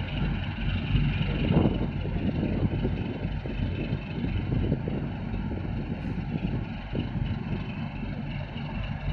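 Tugboat's diesel engine running steadily under load as the tug pushes against the bulk carrier's hull to turn it, heard as a continuous low rumble with a faint steady drone above it.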